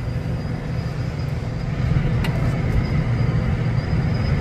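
Tractor engine running steadily as the tractor drives across a field, heard from inside the cab: a dense low rumble that grows slightly louder, with a faint high whine. A single light click comes about two seconds in.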